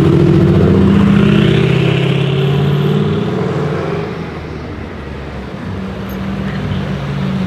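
A Mercedes-AMG GT's twin-turbo V8 passing close and pulling away, loudest over the first three seconds or so. After a short lull, a Ferrari 488 Pista's twin-turbo V8 through a Novitec exhaust grows louder near the end as it approaches.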